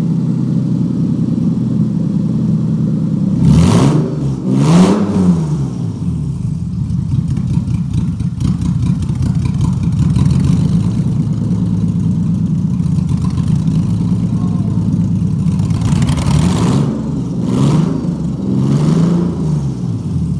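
Car on the move: a steady engine and road drone, with louder rushing passes that swell and fade, once around four seconds in and again in a cluster near the end.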